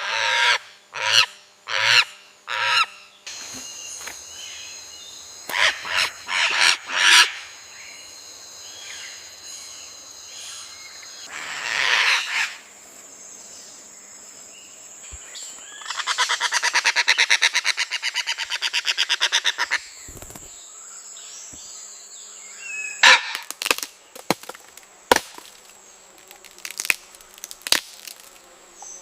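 Parrots calling with loud, harsh squawks in runs of several calls, about two a second, and a long rapid rattling call about halfway through, over a steady high insect drone.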